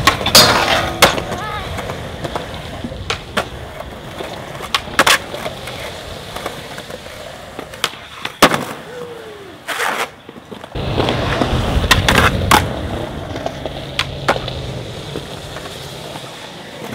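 Skateboard wheels rolling on concrete, broken many times by sharp pops and clacks of the board snapping and landing. A louder run of rolling comes about two thirds of the way through.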